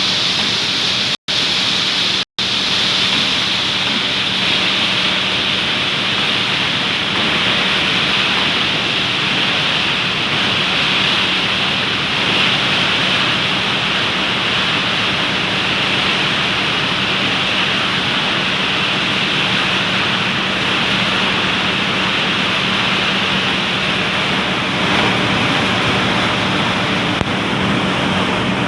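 Steady, loud running noise of palm oil mill machinery: a continuous hissing wash over a constant low hum. The sound cuts out completely twice, very briefly, about one and two seconds in.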